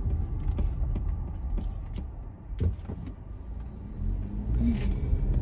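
Steady low rumble of a car's engine and tyres heard inside the cabin while driving, with a few light clicks and knocks scattered through it.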